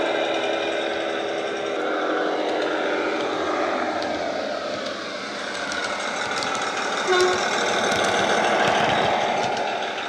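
Recorded German MAN Schienenbus diesel railbus sound played by a DCC sound decoder through a small EM2 speaker in a model GWR parcel car as it runs. The engine note glides up and down in pitch, a short tone sounds about seven seconds in, and it gets quieter near the end.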